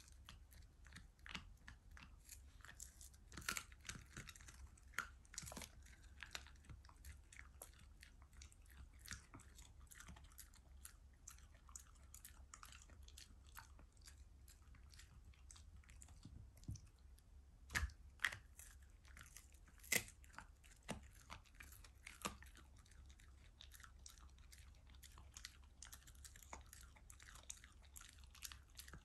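A Shiba Inu chewing and crunching its food: a run of irregular small crunches and clicks, with a few louder crunches past the middle.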